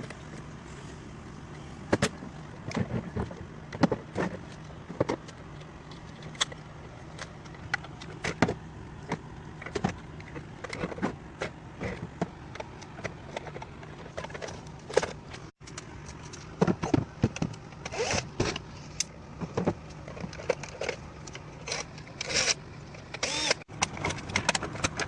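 Plastic and metal parts of a Keurig coffee maker clicking and knocking as it is pulled apart for scrap, in irregular bursts that come thickest in the second half, over a steady low hum.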